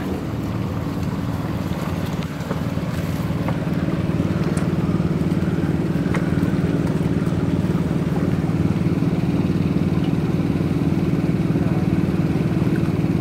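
An engine running steadily at idle, a low even hum that grows a little louder about four seconds in.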